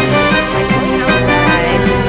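Background music: a lively instrumental tune with bowed strings over a steady beat.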